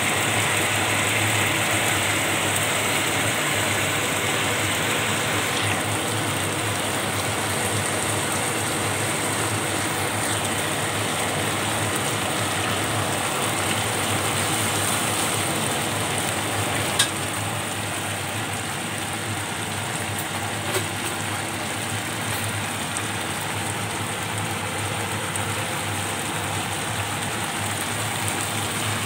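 Broccoli, carrots and chicken simmering in sauce in a pan: a steady bubbling sizzle. A single sharp click sounds a little past halfway.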